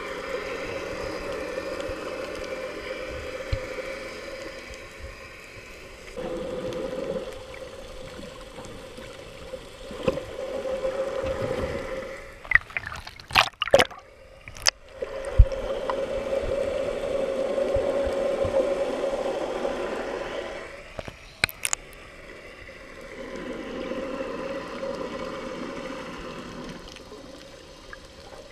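Muffled underwater sound through a camera's waterproof housing: a steady low hum that swells and fades several times, with a cluster of sharp clicks and pops about halfway through and two more a little later, as bubbles and fin kicks stir the water.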